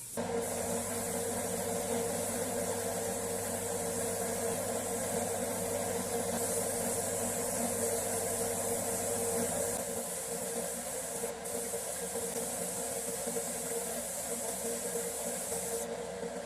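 A motor-driven workshop machine running steadily, with a constant hum and a hiss; a lower hum drops out about ten seconds in.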